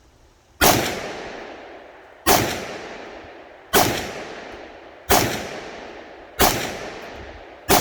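Shots from an Aero Precision 7.5-inch short-barrelled AR in .300 Blackout, firing supersonic 147-grain rounds through a muzzle brake with no suppressor. They come about every second and a half, five of them, then a sixth right at the end. Each is a loud, sharp crack with a long echoing tail, pretty loud.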